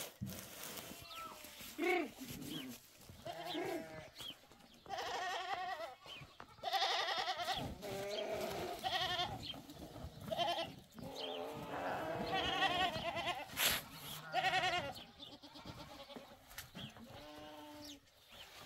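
A flock of sheep bleating, with many wavering calls, some overlapping, from several animals in turn. One sharp click comes about two-thirds of the way through.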